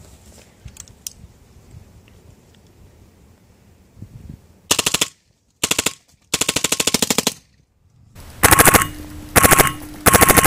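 Tiberius Arms T15 paintball marker firing First Strike rounds in full auto: rapid pops at about 13 a second. After about four and a half seconds of quiet there are five short bursts, and the last runs on past the end.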